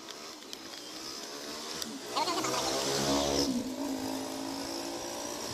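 A motor vehicle engine passing by. Its pitch and loudness rise to a peak about three seconds in, then fall away. A few light clicks come in the first two seconds.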